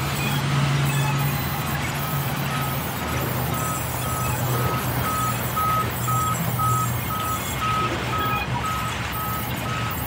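Large sawmill band saw running with a steady motor hum and blade noise as planks are cut. From about two seconds in, a short beep repeats about twice a second.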